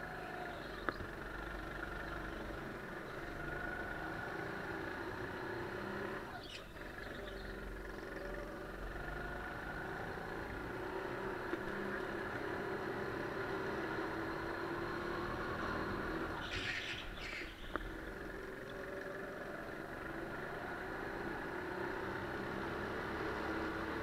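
Sodi GT5R kart's 200 cc Honda single-cylinder four-stroke engine, heard from on board, its pitch rising and falling as it accelerates out of and lifts into corners. Two brief high-pitched sounds break in, about six and a half seconds in and again around seventeen seconds.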